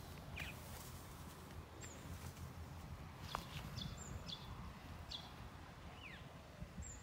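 Birds calling: scattered short high chirps and a couple of falling whistles, over a low background rumble.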